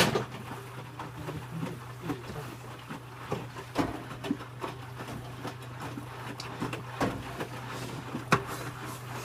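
Electrolux W455H commercial washing machine running mid-wash: a steady low hum with irregular knocks and clunks over it.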